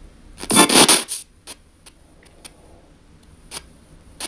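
P-SB7T spirit box scanning FM radio through an ANC-Mini noise filter: a loud rush of static and chopped station sound about half a second in, lasting under a second, then short choppy blips as it jumps between stations.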